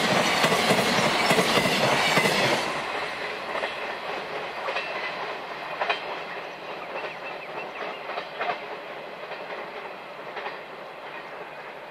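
Container wagons of a freight train rolling past on the rails, loud until the last wagon goes by about two and a half seconds in. Then the wheels' clickety-clack fades steadily as the train draws away, with a few sharper clicks from the rail joints.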